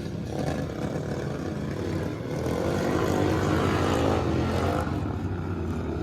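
Modified racing lawnmower engines running at race speed on a dirt track, their pitch rising and falling as they rev, with a climbing note about halfway through.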